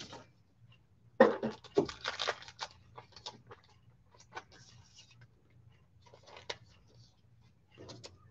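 Faint rustling and clicking of trading-card packaging being handled: a burst of crinkles and taps about a second in, then scattered light ticks and a short rustle near the end.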